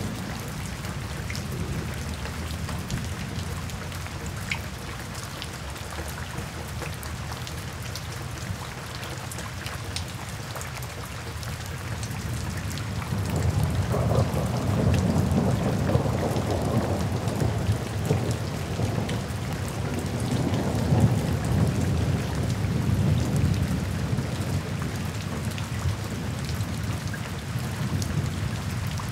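Steady rain falling and splashing on a wet paved path. About halfway through, a low rumble swells up under the rain and fades away over about ten seconds.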